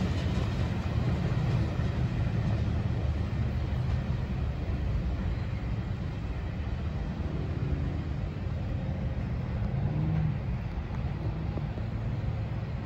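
Freight train of tank cars rolling away on the rails: a steady low rumble of wheels on track that slowly fades as the rear of the train recedes.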